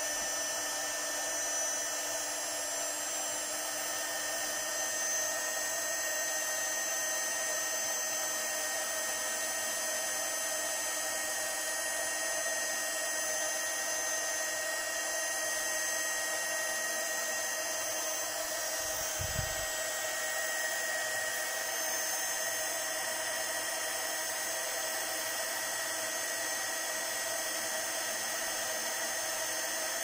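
Tacklife cordless heat gun running steadily, its fan blowing hot air with a steady whine over the rushing airflow. One brief low bump about two-thirds of the way through.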